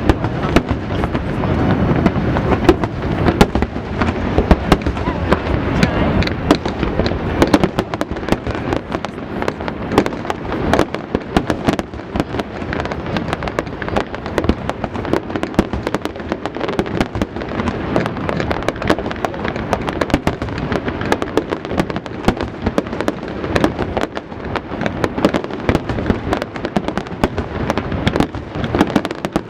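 Fireworks display going off continuously: a dense stream of crackling bursts and booms, many per second, with a rumbling low end throughout.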